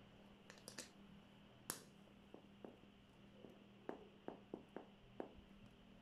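A cleaver-style kitchen knife cutting slices off a rubber eraser on a cutting board: a few sharp clicks early, the loudest about halfway through the second second, then a run of soft taps of the blade on the board, five of them in quick succession near the end.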